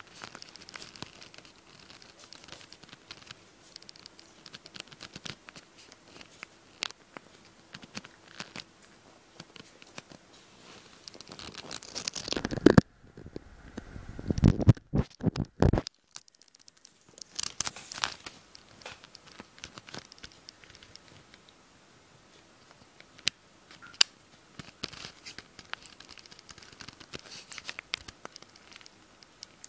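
Maltese puppy's claws clicking and scratching on a tile floor and scrabbling at a fleece dog bed, a scatter of small sharp clicks and scratches. About halfway through there is a loud, muffled rubbing for a few seconds.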